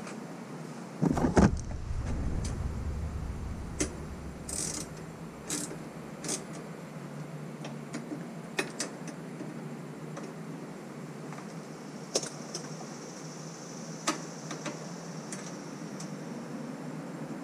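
Hand assembly on a surrey bike's metal frame: scattered clicks and clinks as the child-seat securing bar is fitted, with a heavy thump and rumble about a second in.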